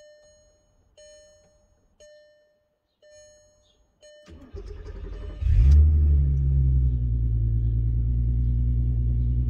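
A dashboard warning chime sounds four times, about once a second. Then the Golf R32's 3.2-litre VR6 is cranked by the starter, catches about five seconds in with a brief rev flare, and settles into a steady idle.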